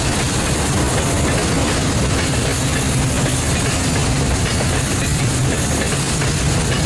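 Freight train of covered container wagons rolling past close by: steady loud rumble and rattle of wheels on the rails.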